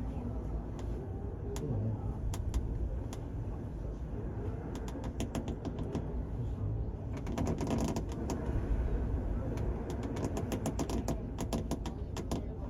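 Steady low rumble aboard the car ferry Kiso under way at sea, with a run of sharp clicks and ticks coming thick and fast in the second half.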